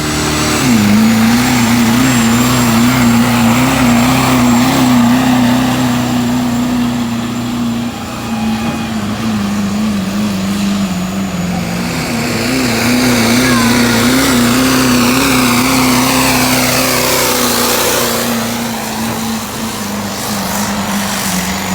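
A competition pulling truck's engine running at high revs under heavy load while dragging the sled down the track, its pitch wavering quickly as the truck bounces. The revs sag about eight seconds in, climb again around twelve seconds as the truck comes past, and fall away near the end as the pull winds down.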